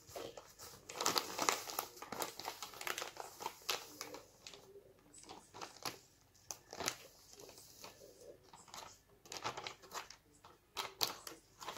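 Clear plastic bag of muffin mix crinkling and rustling in irregular crackles as it is shaken out over a plastic bowl and then crumpled in the hands.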